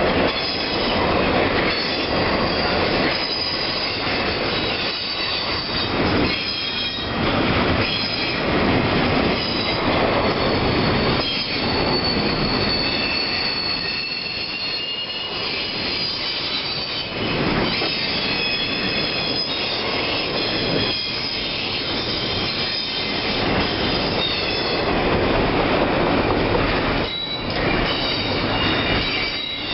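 Freight train of autorack and intermodal cars rolling past, a steady rumble with repeated wheel clunks over the rail joints and thin, high-pitched wheel squeal drifting in and out.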